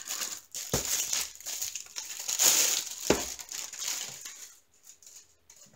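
Plastic wrapping crinkling as a rolled diamond painting kit is handled, with two soft knocks as it meets the wooden table. It fades after about four and a half seconds.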